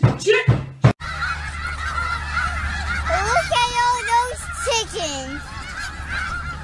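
A large flock of snow geese honking, many short calls overlapping in a continuous chorus.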